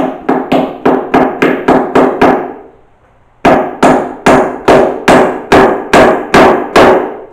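Hammer driving pins to fix an electric cable up to a ceiling beam: steady, loud blows about three to four a second, a pause of about a second just before the middle, then another run of blows.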